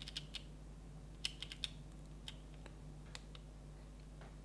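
Panasonic GH5's rear control dial and buttons clicking under a thumb as menus are scrolled. There is a quick run of small clicks just over a second in, then single clicks spaced apart.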